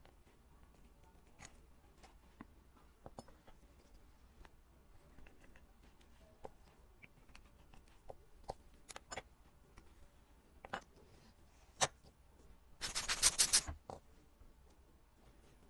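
Small metal clicks and taps of hand tools working on a watch's parts. About 13 s in comes a quick run of rapid, even clicks that lasts under a second.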